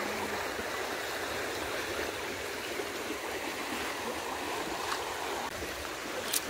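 Shallow, stony river running steadily over rocks: a constant, even rush of water.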